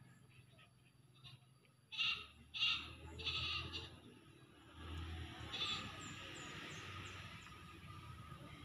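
Ten-day-old puppies whimpering: three short, high cries in quick succession about two seconds in, and one more about halfway through.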